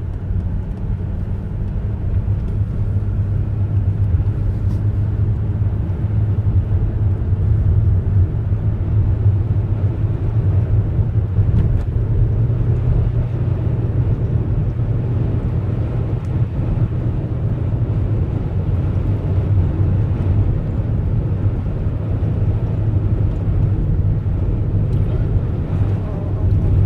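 Car driving at a steady speed: a continuous low engine and road rumble with a broad hiss of tyres and wind over it.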